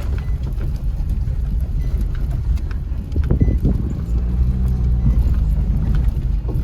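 Car driving on a rough road, with a steady low rumble of engine and road noise; from about four seconds in a steady engine hum comes through.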